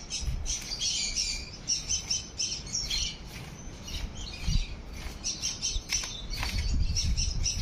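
Many small birds chirping together in a busy, continuous twitter. A low rumble comes and goes underneath, strongest near the end.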